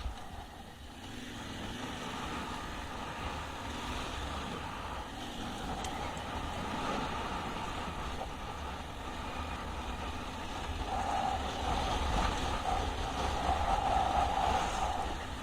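Yamaha Ténéré 700's parallel-twin engine running on the move, getting louder from about two-thirds of the way in and easing off just before the end.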